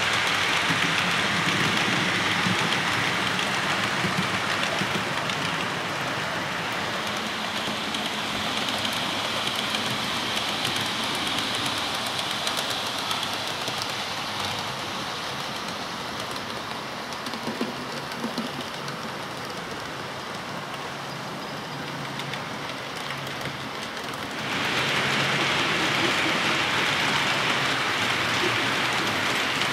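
OO-scale model trains running on the layout's track: a steady rushing hiss of wheels and motors. It gets louder again about 25 seconds in.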